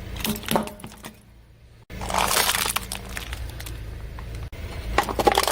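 Crackling, snapping crunches of objects being crushed under a car tyre, over a steady low rumble. The sound drops away about a second in, then starts again abruptly with a dense burst of crunching, and more sharp cracks come near the end.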